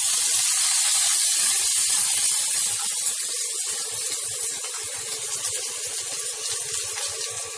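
Diced potatoes sizzling in hot mustard oil in a stainless steel kadai just after being added: a loud, even hiss that slowly dies down as the oil settles.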